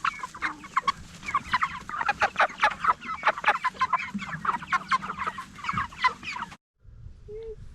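A flock of pastured meat chickens clucking and chirping together, many short calls overlapping. The sound cuts off abruptly about six and a half seconds in.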